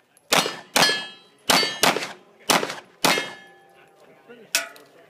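Rapid pistol fire on steel targets: six loud shots in about three seconds, each followed at once by the ringing clang of a struck steel plate. A lighter single clank comes about four and a half seconds in.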